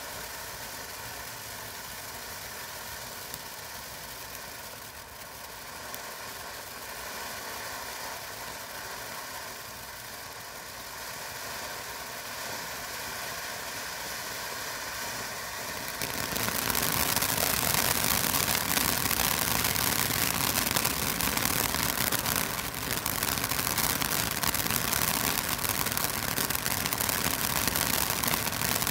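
Ground fountain firework burning, a steady rushing hiss of spraying sparks; about sixteen seconds in it turns suddenly louder and sharper and holds there.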